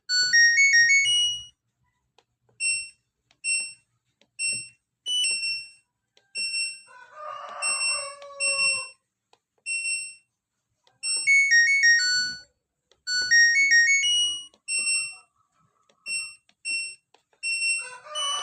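LG Smart Inverter washing machine control panel beeping: short electronic tunes and single high beeps, the panel's buzzer answering as the tested control module powers up and its buttons are pressed. A few seconds in comes a brief noisier sound with two falling tones.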